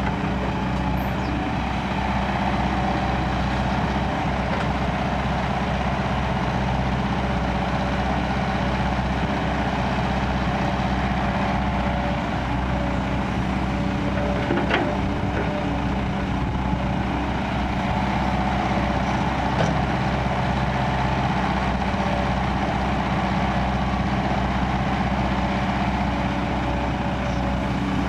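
Kobelco crawler excavator's diesel engine running steadily as it loads soil into a dump truck, with a couple of short knocks about halfway through.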